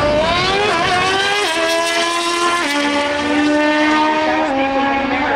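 Drag racing motorcycle engine at full throttle down the strip, its pitch climbing and then dropping sharply at each of three quick upshifts.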